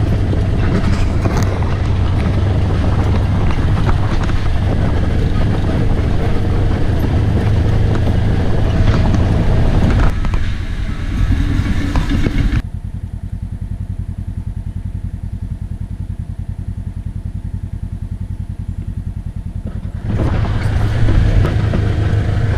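A vehicle engine running steadily with heavy wind and road noise over it. About halfway through the noise drops away, leaving a low, pulsing engine drone for several seconds, and the louder mix returns near the end.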